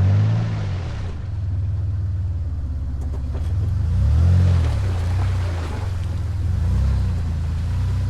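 Off-road 4x4's engine running at low revs. It revs up and back down briefly about four seconds in and again near seven seconds.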